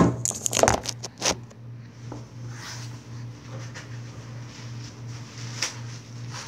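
Phone camera being handled and set down: a few sharp knocks and rustles in the first second and a half, then a steady faint hiss.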